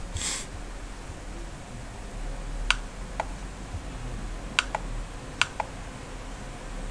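Computer mouse clicking, about five short sharp clicks spread over a few seconds, the last two close together, over a low steady hum.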